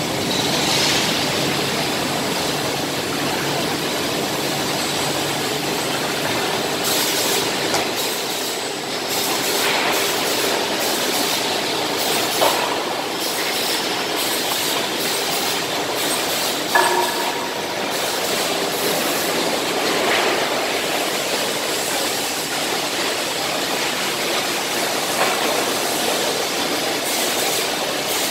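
Steady mechanical din of a wood-processing factory floor, with a high-speed wood cutting machine and its conveyor line running, plus a few short knocks and clatters, one with a brief metallic ring.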